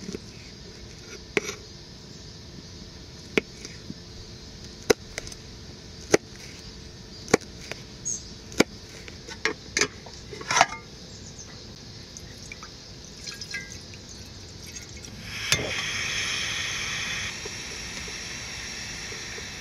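A dozen or so sharp clicks and knocks of small items being handled, then water poured for about two seconds starting about 15 seconds in, going on more softly after that.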